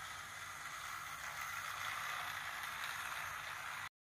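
Battery-powered toy train running on plastic track: a steady whirring rattle of its small motor and wheels, a little louder from about a second and a half in, cutting off suddenly near the end.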